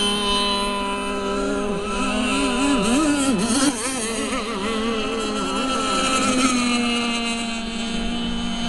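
Several radio-controlled racing boats' small engines running at high revs over the water. Some hold a steady buzz while one swings up and down in pitch between about two and five seconds in, as it is throttled through turns.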